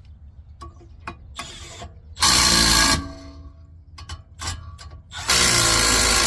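Impact wrench hammering the two brake caliper bolts tight, in two short bursts about three seconds apart, with small clicks of handling between.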